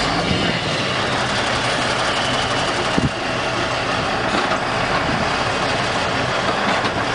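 Semi-truck diesel engine running steadily while the trailer's tandem wheels climb over a concrete curb, with a single sharp knock about three seconds in.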